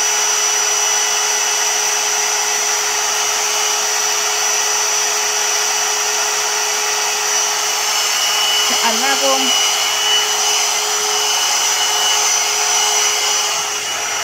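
Blo Brush hot-air brush dryer running on its cool setting: a steady, really loud blowing with a high whine over it. It eases slightly near the end.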